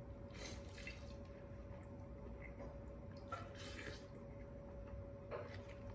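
Noodles slurped from a bowl of broth: a long wet slurp about half a second in, another about three seconds later, and a short one near the end, over a faint steady hum.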